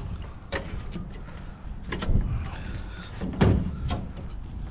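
Three heavy thumps and clunks, the loudest a little past halfway, over a steady low rumble.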